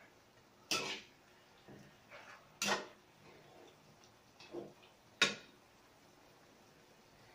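Metal spatula knocking and scraping against a metal frying pan while stirring chicken pieces: four sharp clanks spread through the first five seconds, with fainter scrapes between, the last and sharpest a little after five seconds.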